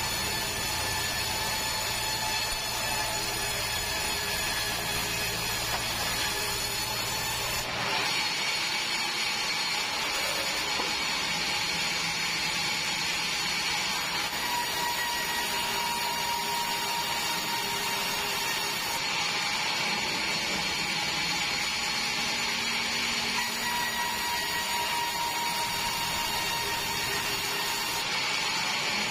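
Band sawmill cutting a meranti log lengthwise into boards: a steady whine of the band blade running through the wood over the mill's machinery. The sound changes abruptly about a quarter of the way in, losing its low hum, and shifts again a few more times.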